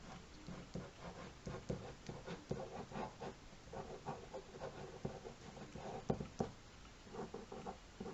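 Fine-tipped Pigma Micron ink pen scratching on sketchbook paper in quick, short, irregular strokes.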